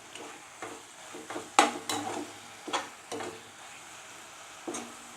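Spoon stirring and scraping idli halwa around a pan in short strokes, about six of them, over a faint sizzle of ghee cooking on low flame. The ghee has begun to separate out of the halwa, the sign that it is done.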